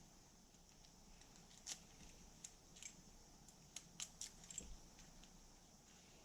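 Faint, scattered metallic clicks, about seven or eight from about a second and a half in until near the end, over near silence. They come from the key and ignition lock cylinder being worked, a lock the owner suspects has a tumbler problem.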